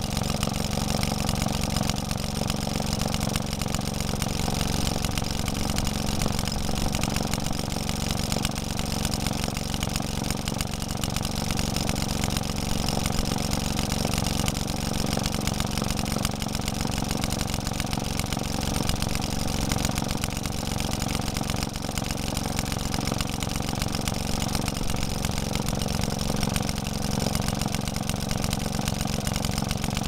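1946 Maytag Model 72 twin-cylinder two-stroke engine running steadily at idle, with a rapid, even firing beat. The owner says this engine is crying out for new bushings and rings.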